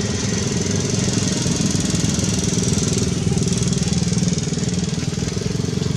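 Engine running steadily, a low hum with a fast even pulse.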